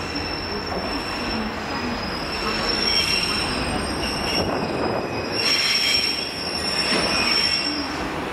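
GWR Hitachi Intercity Express Train running slowly through the platform, its wheels squealing on the rails in a steady high-pitched tone that fades and returns, over the rumble of the train.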